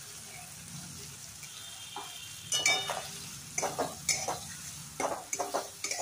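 Spice paste frying in oil in a kadai with a steady sizzle, being fried until the oil separates. From about halfway, a spatula scrapes and stirs it against the pan in quick clusters of strokes.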